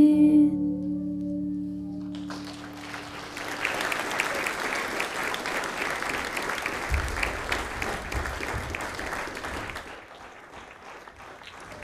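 The girls' last held sung note and its accompanying chord fade out, then an audience applauds. The clapping begins about two seconds in and dies away near the end.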